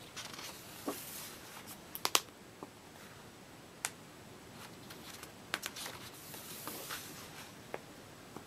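Paper pages of a colouring book being turned by hand: rustling as each page is lifted and laid over, with several sharp paper snaps, the loudest about two seconds in.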